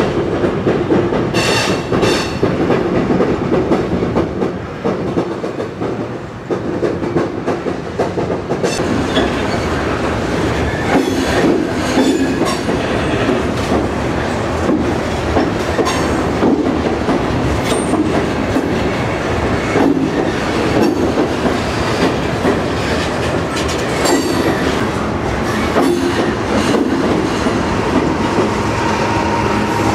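Freight train of covered hopper cars rolling over a steel girder trestle: a continuous heavy rumble and rattle with repeated clacking of wheels over rail joints. A thin steady squeal comes in near the end.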